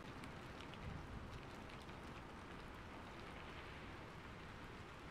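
Faint steady rain with scattered drop ticks, and a short low rumble about a second in.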